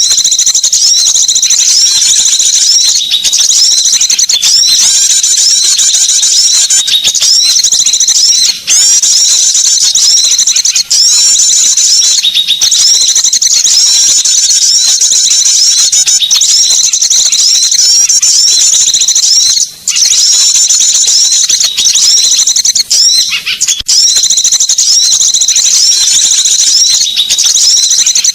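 Bird-lure recording of small songbirds calling: a loud, dense, unbroken stream of quick, high chirps, with a brief break about two-thirds of the way through.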